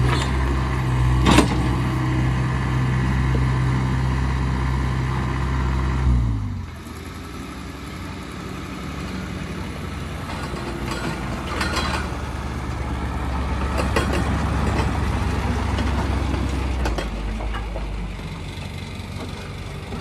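A skid-steer loader's engine running steadily, with one sharp knock just over a second in; the sound stops abruptly about six seconds in. After that, a quieter engine runs steadily.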